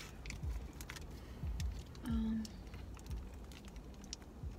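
Light clicks and rustles of a candy wrapper being handled and opened, with a few soft thumps. A short hummed voice sound comes about two seconds in.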